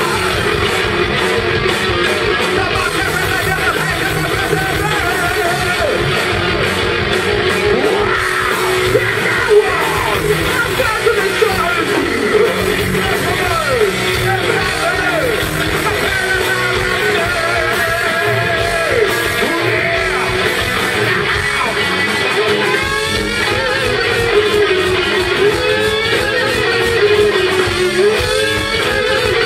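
A heavy metal band playing live: distorted electric guitars, bass and drums at full volume, with a high lead line that bends and wavers in pitch over the top.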